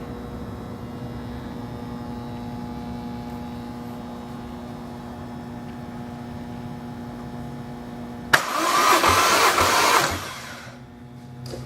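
A steady hum, then about eight seconds in, roughly two seconds of loud cranking: the starter turning over a Toyota 1JZ twin-turbo engine for a compression test.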